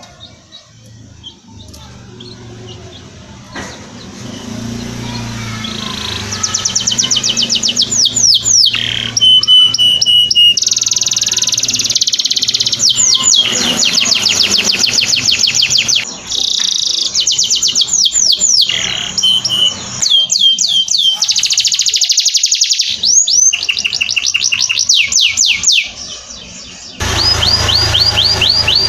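Domestic canary singing: a long song of rapid trills and runs of fast, repeated downward-sweeping notes. It starts faint and becomes loud about six seconds in, with a few brief pauses.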